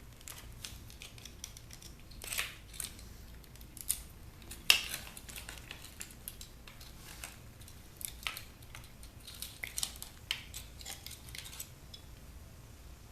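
Wire cutters snipping through the internal wires of a clothes steamer: a scatter of short, sharp snips and clicks, the loudest a little under five seconds in.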